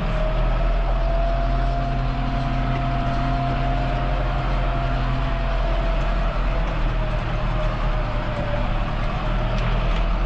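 Farm tractor engine running steadily, with a thin steady whine above its low engine note.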